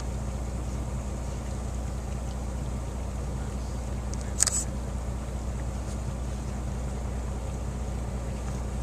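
Boat engine running at a steady drone, with one short sharp click about halfway through.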